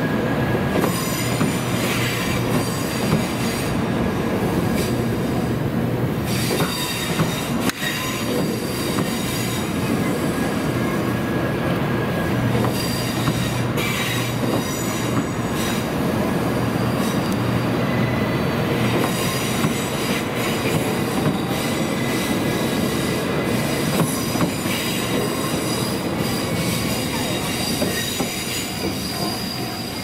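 Doctor Yellow, a class 923 Shinkansen inspection train, rolling through a level crossing with its wheels squealing in steady high tones over a continuous rail rumble, with scattered sharp clicks.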